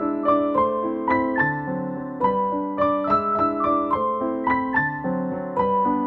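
Background piano music: a gentle melody of struck notes over held chords, two or three notes a second, each fading after it is struck.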